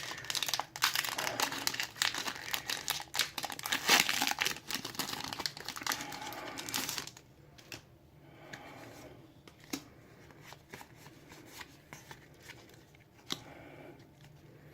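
Foil wrapper of a Pokémon Evolutions booster pack being torn open and crinkled for about seven seconds, then quieter rustling with a few soft clicks.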